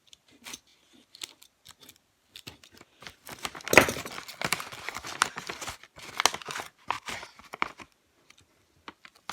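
A shipping package being opened by hand: a few small rustles and clicks, then about three seconds in a run of tearing and crinkling packaging, loudest in one sharp rip at its start, which dies away near the end.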